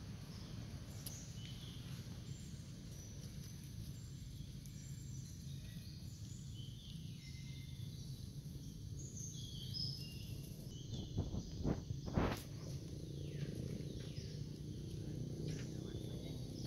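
Outdoor ambience: a steady low rumble with scattered short, high chirps and calls. About two-thirds of the way through come three sharp knocks close together, the loudest sounds here.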